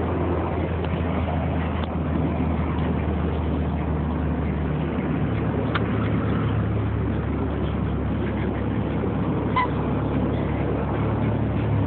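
Turbocharged Honda Civic GSR engine idling steadily, its idle note rising slightly about five seconds in.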